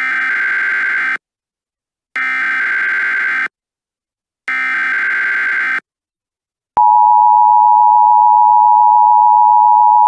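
Emergency Alert System tones: three bursts of SAME header data, a harsh electronic screech about a second and a half long each, with short gaps between them. About seven seconds in comes the louder, steady two-tone EAS attention signal, marking the start of an emergency alert.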